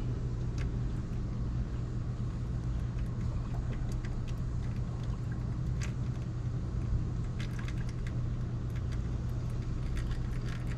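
Steady low mechanical hum, with scattered light clicks and ticks that come more often in the second half.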